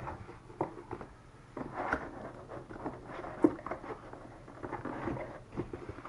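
Handling noise from unpacking a Razer Ornata Chroma keyboard: packaging rustling and scraping with scattered light knocks as it is opened and handled, and one sharper knock about three and a half seconds in.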